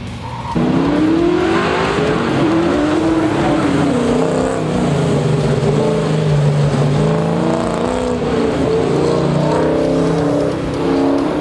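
A pickup truck's engine being driven hard through an autocross cone course, revving up and down with each throttle change so its pitch keeps rising and falling. It gets suddenly louder about half a second in.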